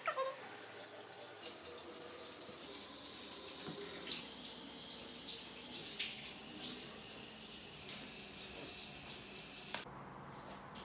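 Water tap running steadily as a cup is filled with water, then shut off abruptly near the end.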